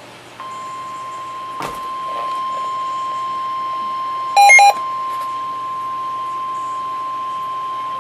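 Emergency alert attention signal: the single steady 1050 Hz warning alarm tone of a NOAA Weather Radio severe thunderstorm warning, starting about half a second in. About four and a half seconds in, a brief, louder multi-tone beep sounds over it.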